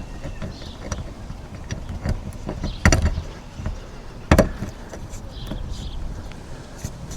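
Two loud knocks about a second and a half apart, with light clicks and handling noise between them: a solar panel and its mounting brackets being shifted and set down on a van's metal roof while lining up the screw holes.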